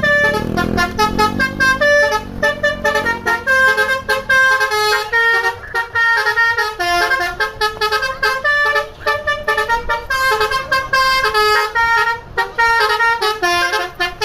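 Bus telolet horn, a Basuri V3 electric multi-tone horn, playing a fast melody of short stepped notes without a break. A low wavering sound lies under it in the first two seconds.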